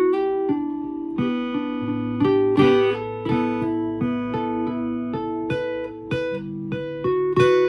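Guitar played solo: a melody of plucked single notes that ring on into one another, with a low bass note joining about two seconds in.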